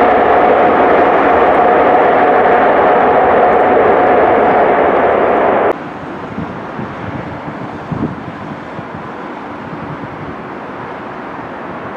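Loud jet engine noise from an airliner moving on the airfield, with a steady whine, cut off abruptly about six seconds in. It is followed by quieter outdoor noise with low wind gusts buffeting the microphone.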